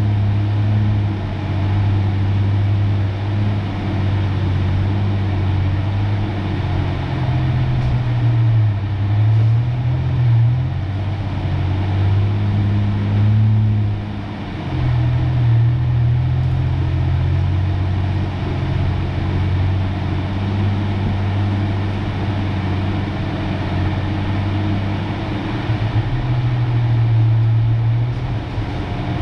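Pickup truck engine running as it is driven slowly over a dirt trail, its low hum rising and falling in pitch as the revs change.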